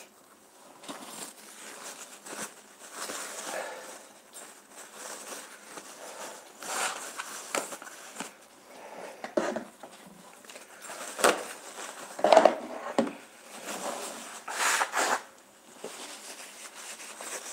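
Irregular rustling and handling noises close to the microphone, among them a sheet of paper towel being handled, with a few sharp clicks; the loudest burst comes about twelve seconds in.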